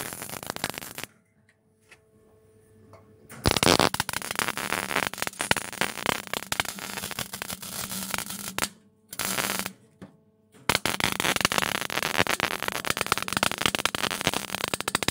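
Arc welder crackling as it welds an exhaust pipe, in separate runs: a short one at the start, a long one from about three and a half seconds, a brief burst near nine seconds and another long run from about eleven seconds. A faint steady hum fills the pauses between runs.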